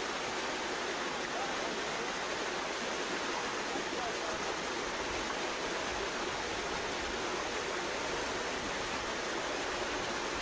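Steady rush of water in a shallow stream, with people wading and splashing in it.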